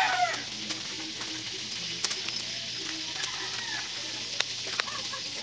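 The tail of a rooster's crow at the very start, then a steady outdoor hiss with faint chicken calls and scattered small clicks, over faint background music.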